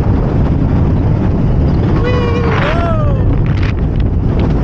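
Mack Rides launch coaster train running at speed, heard from the front row: a steady rumble of wheels on the track mixed with wind rushing over the microphone. About two seconds in, a rider gives a brief yell.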